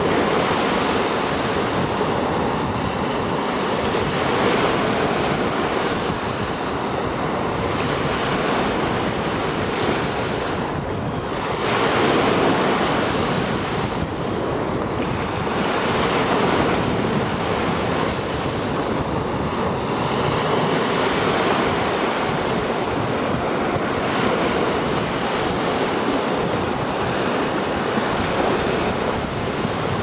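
Small lake waves breaking and washing up a sandy shore among boulders: a continuous surf wash that swells and eases every few seconds.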